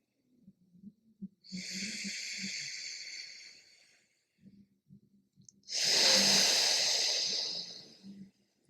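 Alternate nostril breathing: two slow breaths drawn through one nostril, a softer one followed by a louder, longer hissing one.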